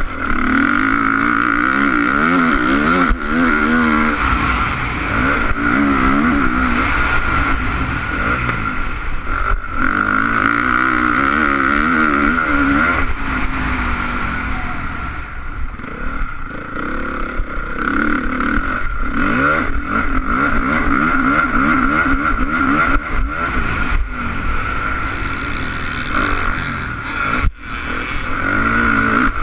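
Honda CRF450 motocross bike's four-stroke single-cylinder engine, heard from the rider's helmet, revving up and down continuously as it is ridden hard around the track. The throttle eases off about halfway through and cuts briefly near the end.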